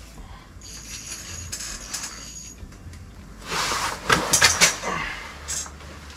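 Rustling of clothing and a folding chair, with a cluster of sharp clicks and knocks about three and a half seconds in, as an ice angler gets up from the chair while fighting a hooked fish.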